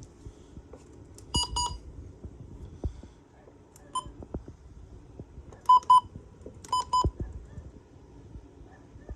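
Weather radio receiver giving short electronic beeps: a quick double beep, a single beep, then two more double beeps. Light clicks and knocks fall in between.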